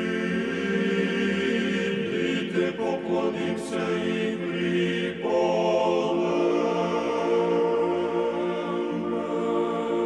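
Intro music: a choir chanting in long sustained chords, moving to a new, fuller chord about five seconds in.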